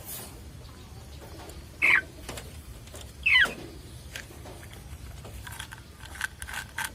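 Chicken giving two short, high squawks, about two and three seconds in, while it is held to be dosed with a capsule. Handling rustles and clicks run between them, and a few fainter short calls come near the end.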